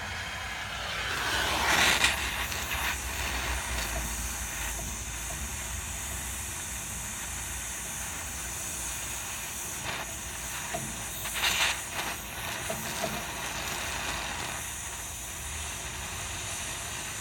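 Handheld gas torch hissing steadily as it heats a rusted stabilizer bar link stud to free it. It swells loudest about two seconds in, with another brief louder surge later on.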